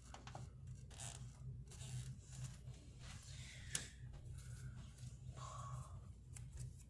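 Faint rustling and handling of paper cards, with one sharp click a little past the middle, over a low steady hum.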